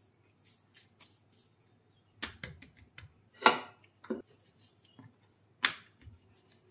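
Hands pressing and patting a ball of dough flat on a marble rolling board: faint soft taps at first, then four sharp knocks spread over the next few seconds, the loudest near the middle.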